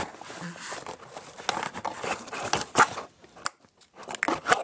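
Close handling noise: irregular clicks, taps and crinkly rustles as small objects are moved about near the microphone. It eases off about three seconds in, then a few more clicks come near the end.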